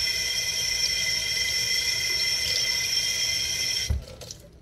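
Kitchen tap running, water streaming into the sink as a glass cup is rinsed under it, with a steady hiss. About four seconds in the water stops suddenly with a short low knock.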